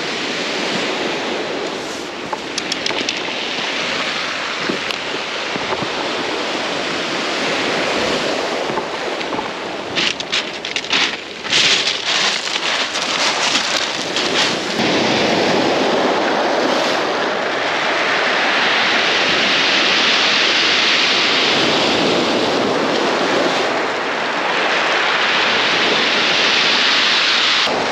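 Sea surf breaking and washing up a pebble beach, a steady rush that swells louder through the second half. A run of short clicks comes near the middle.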